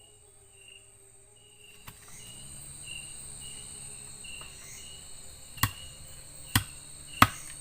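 Night forest insects calling: a steady shrill tone with a chirp pulsing about twice a second. Three sharp, loud knocks come in the last two seconds.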